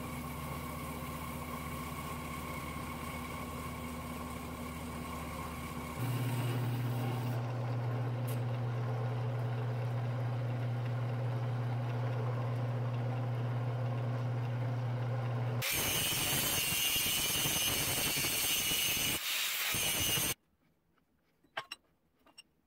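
Horizontal metal-cutting bandsaw running with a 14 TPI bi-metal blade, cutting half-inch-thick steel angle iron; its motor hum steps up louder with a strong low tone about six seconds in. About sixteen seconds in a louder hissing noise takes over for some four seconds, then stops abruptly, leaving a few light metal clicks.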